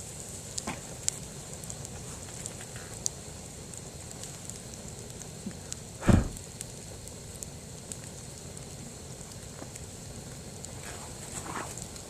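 Campfire crackling and hissing as a bamboo stalk burns, with one loud sharp pop about six seconds in as a sealed section of the bamboo bursts from the steam built up inside it.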